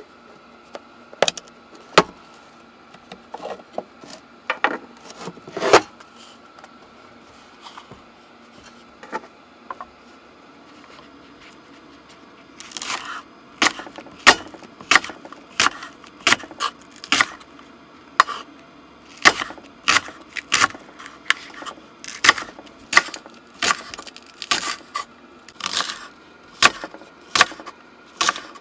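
Sharp knocks on wood: a few scattered ones, then from about halfway a steady series of strikes, about one and a half a second.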